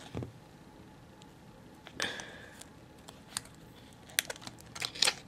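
Light clicks and small knocks of a hard plastic phone case being handled and picked at with the fingers, with a short squeak about two seconds in and a quick run of sharp clicks near the end.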